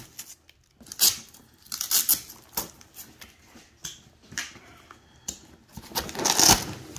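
Hook-and-loop (Velcro) panels on a nylon backpack being peeled apart by hand in several short rasping rips, with fabric rustling as the pack is handled.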